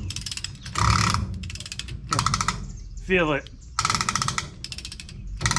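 Rapid clicking in short bursts as the rear hub's spindle nut on a Ford F350 Super Duty is tightened with a long torque wrench. The clicking is the ridged locking spindle nut ratcheting over its ridges as it turns.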